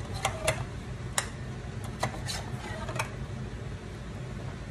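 A spoon scraping and knocking against a plastic measuring cup as thick coconut milk is scooped out into a glass mixing bowl: a handful of light, separate clicks over a steady low hum.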